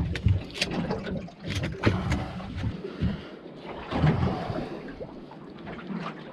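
Small fishing boat on the water: water slapping against the hull, broken by irregular knocks and clicks, with more of them in the first half.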